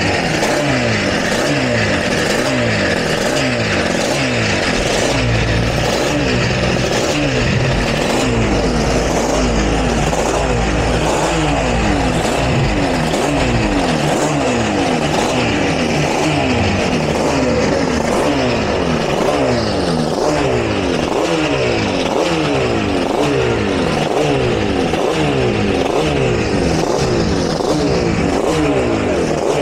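Two-stroke racing motorcycle engine being blipped over and over in quick succession, its pitch sweeping up and dropping back each time, as in a warm-up.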